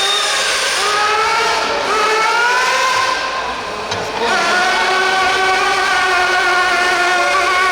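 Motor of a radio-controlled pulling truck or tractor whining under load during a pull. Its pitch rises slowly over the first few seconds, dips briefly about four seconds in, then holds steady and high.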